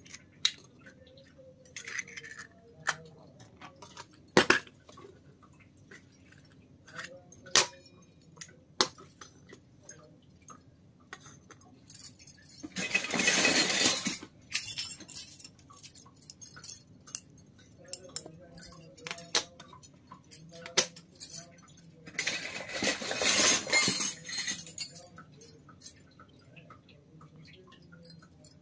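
Miniature stainless-steel toy kitchen utensils clinking and tapping against each other as they are handled, including a tiny spice box's cups and a small ladle. Sharp, separate clinks are scattered throughout. Two longer stretches of rough noise, about halfway and about three-quarters through, are the loudest sounds.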